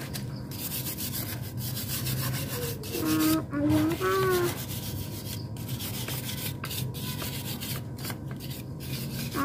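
Repeated rubbing strokes on a motorcycle engine part being cleaned of oil grime, with a few short voice sounds about three and four seconds in.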